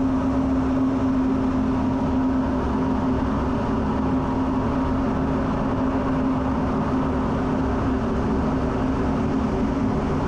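Steady jet engine and air noise inside an F-16 fighter's cockpit, with a constant hum running through it.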